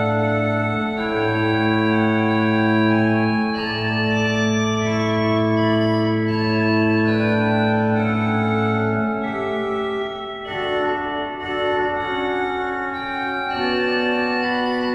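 Hauptwerk virtual pipe organ playing slow, sustained chords, with a low bass note held beneath them until about two-thirds of the way through.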